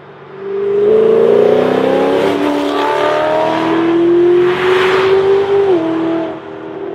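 Mercedes SLS AMG's 6.2-litre V8, through a Supersprint full exhaust with headers, metallic sports cats and an X-pipe, accelerating hard. Its note climbs in pitch, breaks about two seconds in for a gear change and climbs again. It is loudest as the car passes about five seconds in, then its pitch drops near the end.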